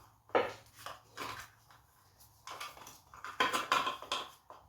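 Irregular knocks, clinks and scrapes of parts being handled and worked loose by hand, as a moped's air filter is pried out from beside the engine; the clatter is busiest near the end.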